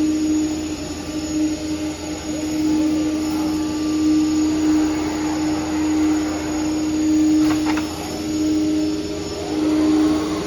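Multi-head CNC router's spindles running while cutting MDF: a steady machine whine with one strong held tone that swells and dips in level, and a short knock about seven and a half seconds in.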